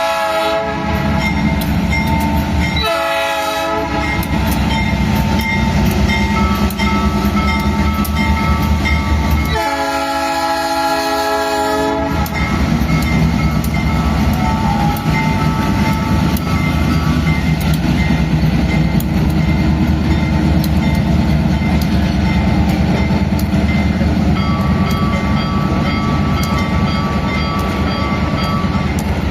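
GE C44-9WM (Dash-9) diesel-electric locomotive sounding its horn, a short blast about 3 seconds in and a longer one of about two seconds near the middle. The train then rolls by with a steady low rumble, wheels clacking over rail joints, and a faint steady whine at times from the GE752AH traction motors.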